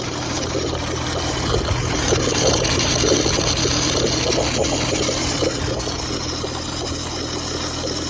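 Compressed air being forced through a pressure washer, hissing and sputtering out of its Flow Pro bypass line as it blows the leftover water out, over a steady low hum. The sputtering is strongest about two to five seconds in.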